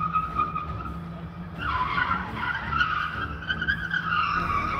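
Chevrolet Gentra's tyres squealing in a long smoky skid, with the car's engine rumbling underneath. The squeal grows louder and wavers about a second and a half in.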